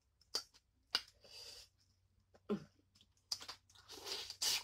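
Close-up eating sounds of boiled blue crab and shrimp: a couple of sharp clicks and crunches, a brief low vocal sound midway, then a denser run of crackling, smacking chews near the end.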